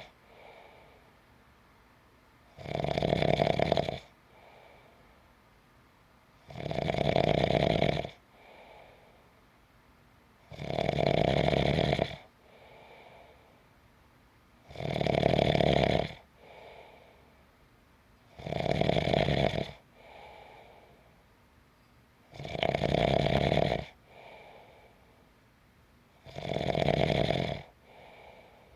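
A sleeper snoring steadily: seven loud snores about every four seconds, each followed by a much softer breath.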